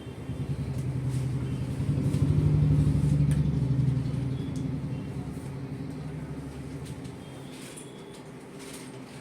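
A motor vehicle's engine going past: a low, pulsing rumble that builds over about two seconds, is loudest around the middle, then fades away.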